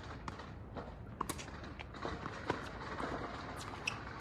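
Tennis rally on a hard court: sharp pops of rackets striking the ball and the ball bouncing, the loudest three about a second and a quarter apart, with lighter taps of players' footsteps between them.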